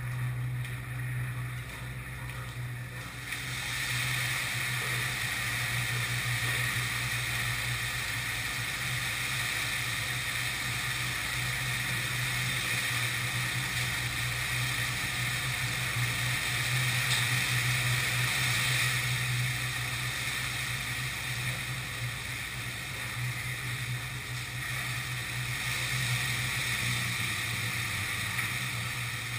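A turkey-fryer fire burning on and under a wooden porch: a steady rushing noise of flames that gets louder about three seconds in as the fire spreads. A constant low hum runs underneath.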